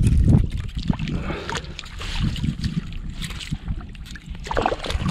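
Water sloshing and splashing at the water's edge, with wind buffeting the microphone.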